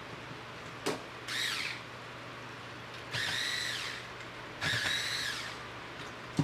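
Cordless electric screwdriver whirring in three short runs, each spinning up and winding down in pitch, as it backs out the screws holding a drone remote controller's main board. A sharp click comes just before the first run.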